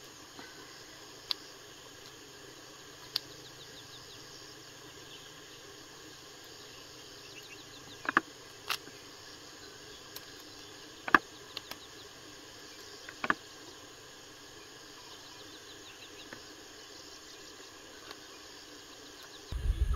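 Scissors snipping mushrooms off a log: a handful of sharp, brief clicks spread irregularly, the loudest about eleven seconds in. Insects chirr steadily and faintly underneath.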